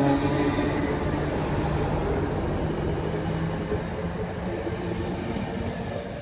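Class 319 electric multiple unit pulling away from the platform: a steady motor hum and wheel rumble that slowly fade as it draws away.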